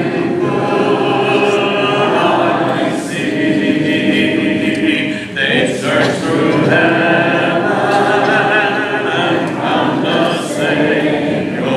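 A church congregation singing a hymn together a cappella, many voices in unison with no instruments, pausing briefly between phrases about halfway through.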